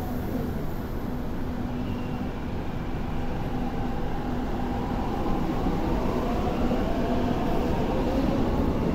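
An MTR Kwun Tong Line C-train pulling out of the platform into the turnaround track, heard through the platform screen doors: steady wheel and running noise, with a motor whine that rises slowly in pitch as the train gathers speed in the second half.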